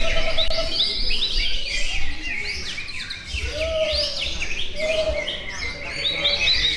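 Several caged songbirds singing at once: a dense stream of overlapping quick whistles, chirps and arching phrases with no pause, with a few lower whistled notes among them.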